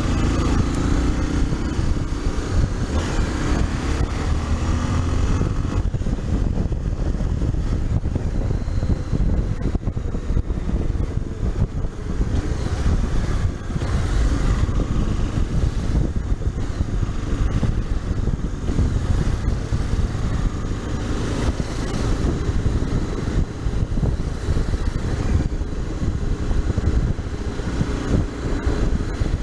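Honda XRE 300's single-cylinder engine running while riding in traffic, heard as a steady low rumble mixed with wind noise on the microphone. The engine note rises briefly near the start as the bike pulls away.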